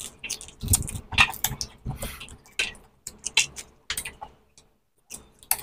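Pomelo being peeled and torn apart by hand and chewed: irregular wet crackles and clicks of the juicy pulp and membranes, with a short pause near the end.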